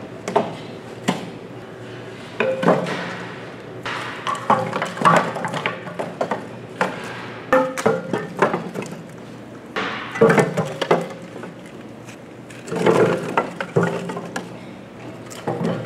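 Kitchen work: irregular knocks, clatter and clinks of pots, dishes and utensils, coming in clusters.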